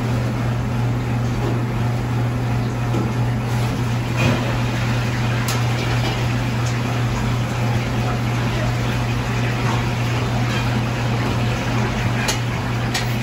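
Steady hum and rushing noise of commercial kitchen machinery, with a few faint clicks.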